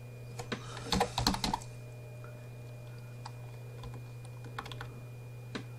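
Computer keyboard typing: a quick run of keystrokes about a second in, then a few scattered single key presses. A steady low hum and a faint high whine run underneath.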